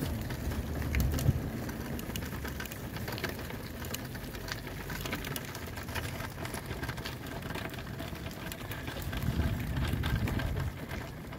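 Wheelchair wheels rolling over asphalt with footsteps alongside, a steady crackling, gritty noise full of small clicks, and low rumbles near the start and close to the end.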